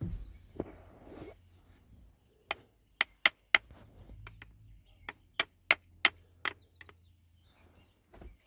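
About ten sharp, uneven taps, starting about two and a half seconds in, driving the retaining pin into a VW T4 front-door lock cylinder, with some handling noise before them.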